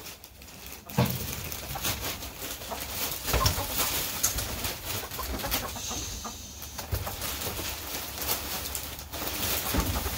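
Pine shavings pouring and rustling out of a plastic bag onto a coop floor, starting about a second in, with hens clucking.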